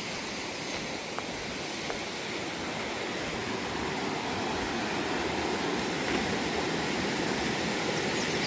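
Creek water rushing over rocks, a steady rush that grows gradually louder.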